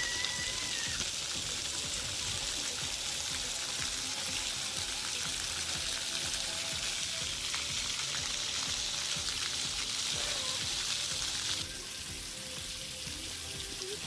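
Splash pad water jets spraying, a steady hiss of falling water that drops away sharply near the end.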